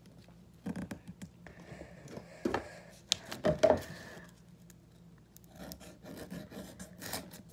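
Mechanical pencil scratching as it marks printed paper on a tabletop, with the paper being handled and a few light knocks.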